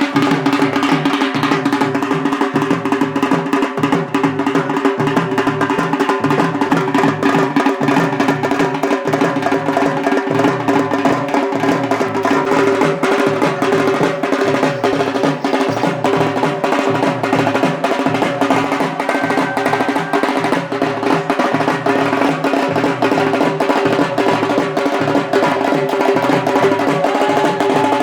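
Background music with a fast, steady percussion beat over sustained held tones.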